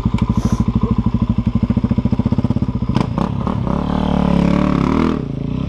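KTM Freeride dirt bike engine idling with an even pulsing beat. About halfway through there are a few clattering knocks, then the engine pulls harder under throttle for a couple of seconds before easing back.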